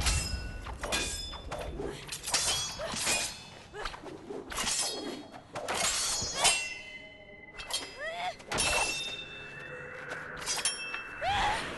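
Swords clashing in a rapid series of blade-on-blade strikes, each ringing briefly, with a short lull about seven seconds in before the blows resume.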